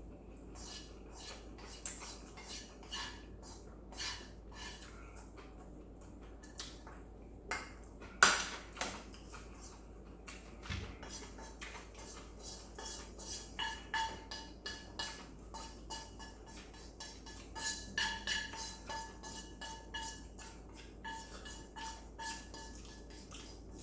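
Eating utensils repeatedly clinking and scraping against a dish while noodles are eaten. There is one sharp, louder knock about eight seconds in, and from about halfway on the strikes leave a short ringing tone.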